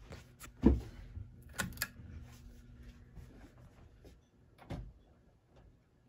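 Broan Alaska close-mount ceiling fan running with a faint steady hum. A loud thump comes about a second in, a few sharp clicks follow just after, and another thump comes near the end.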